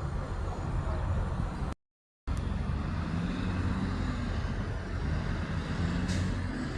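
Low, steady rumble of vehicle engines and passing traffic, with no horn sounding. The sound cuts out completely for about half a second around two seconds in, and a brief sharp click comes near the end.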